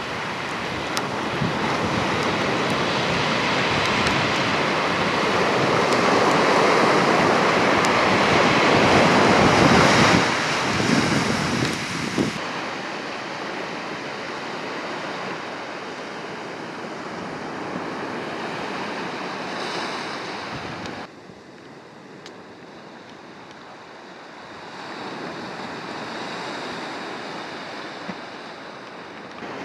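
Sea surf washing on the beach, with wind buffeting the microphone. The rush swells to its loudest about ten seconds in, drops off sharply about twelve seconds in and again about twenty-one seconds in, then rises again towards the end.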